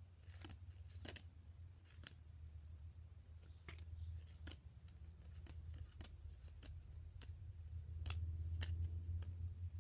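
Baseball cards handled and flipped through by hand during a search for one card, making a scatter of irregular light clicks and snaps. A steady low hum runs underneath and grows louder near the end.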